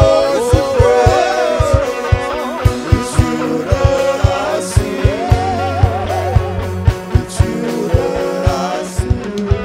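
Live praise-and-worship band music: a steady drum beat under bass and guitar, with a wavering melody line on top.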